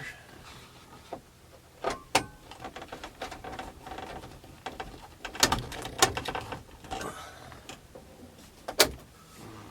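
Scattered plastic clicks and knocks as the Ford overhead display console is fitted back in place and its screw driven in.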